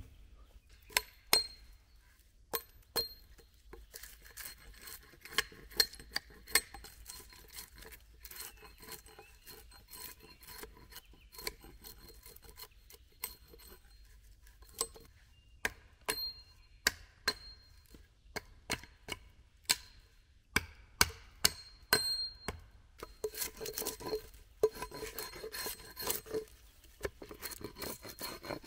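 Small hatchet chopping into a wooden pole: irregular sharp knocks of the blade on the wood, each with a slight ring. Near the end the strokes come quickly and run together into rapid scraping.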